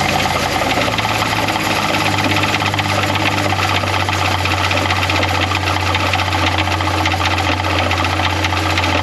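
Jeep Cherokee XJ's 4.0L inline-six idling just after starting, with a steady, fast knocking from the bottom end that is really bad at idle in park. The owner suspects a bottom-end fault such as a spun bearing or worn rod.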